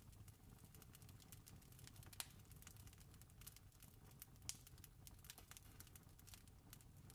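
Campfire crackling faintly: a steady scatter of small snaps over a low rumble, with two sharper pops a couple of seconds apart.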